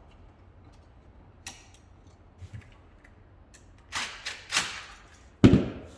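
Light ticks, then handling scrapes of stiff 14-gauge copper wire and a plastic outlet as the wires are pushed into the outlet's push-in (backstab) terminals. A sharp knock near the end is the loudest sound.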